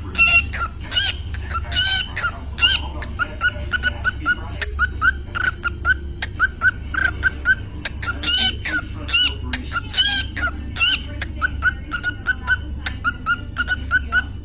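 Cockatiel calling repeatedly: short chirps, a few a second, with louder upswept calls mixed in. A steady low hum runs underneath.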